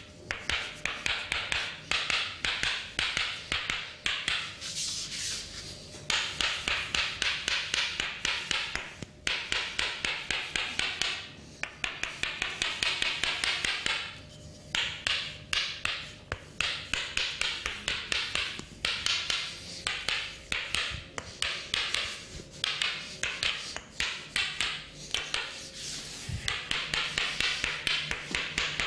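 Percussive massage: a barber's hands striking the body in fast runs of several strikes a second, broken by short pauses.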